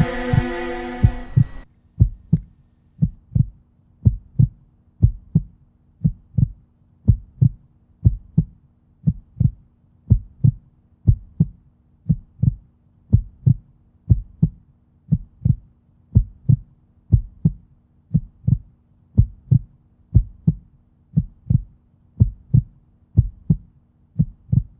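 Heartbeat sound effect: steady, evenly spaced low double thumps over a faint hum. A sustained drone ends suddenly about a second and a half in.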